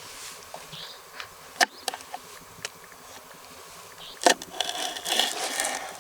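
Insects buzzing close by, with a couple of sharp knocks about a second and a half in and again past four seconds.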